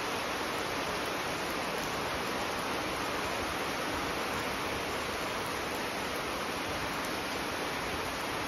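Heavy rain falling steadily on garden foliage, brick paving and a pond: a dense, even hiss.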